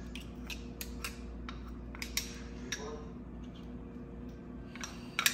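A spoon clicking and scraping against a blender's blade assembly as wet bean batter is scraped off into a metal bowl, in scattered light taps a few times a second, over a steady low hum.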